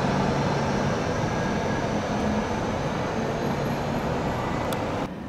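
Red articulated Bern tram running along the street amid passing car traffic: a steady rumble with a faint hum and a faint rising whine. The sound drops suddenly about five seconds in.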